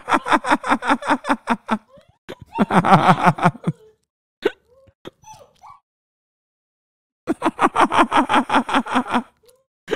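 A man laughing into a close microphone in three bouts of quick, rapid-fire pulses: at the start, about three seconds in, and again near the end.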